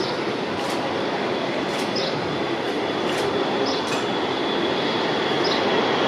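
CFM56-3 turbofans of a Boeing 737-300 freighter at takeoff thrust as it lifts off and climbs, a steady roar that grows slightly louder. A thin, high, steady whine comes in about two and a half seconds in.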